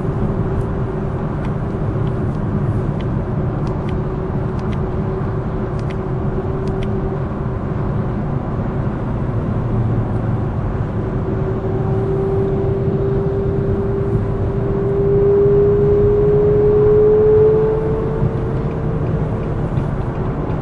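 Car driving at motorway speed, heard from inside the cabin: steady road and engine noise. An engine note climbs slowly in pitch and swells about three quarters of the way through, then falls back.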